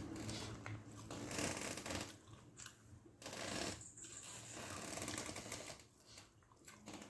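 Close-up eating sounds from a meal of white rice with fish gravy: irregular soft crackles and smacks in several short spells, with quieter gaps between.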